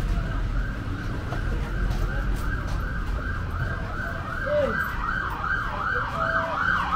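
Emergency vehicle siren in a fast yelp, its pitch rising and falling about two to three times a second and growing louder toward the end, over the low rumble of street traffic.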